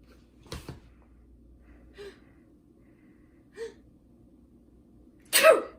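A person takes three short gasping breaths, a second or more apart, building up to a sneeze. One loud sneeze bursts out near the end.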